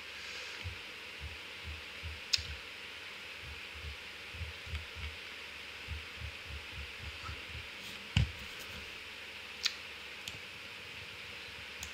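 Computer mouse being scrolled and clicked: faint, irregular soft low thumps and a few sharp clicks, the loudest about eight seconds in, over a steady hiss.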